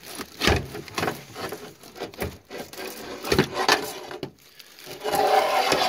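Knocks and scraping as a metal pressure-washer lance is pulled out from among coiled hoses and a surface cleaner, with a longer, louder scrape near the end.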